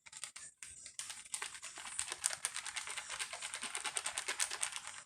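Fish seasoning being shaken from a shaker container: a quick, continuous run of light, dry clicks.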